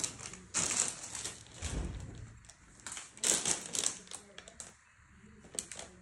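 Rustling of cloth and packaging in irregular bursts as suit pieces are handled, with a soft low bump about two seconds in.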